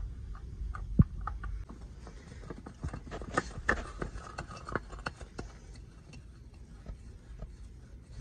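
Light clicks and knocks of a spin-on oil filter being handled and threaded onto its mount by a gloved hand, with one sharper knock about a second in and a busier run of clicks around the middle.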